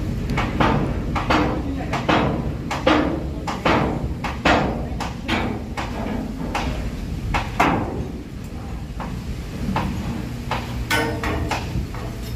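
Hammer blows on steel ship-hull framing, a run of sharp ringing metallic strikes about one a second that thin out later, with one strongly ringing blow near the end, over a steady low machinery hum.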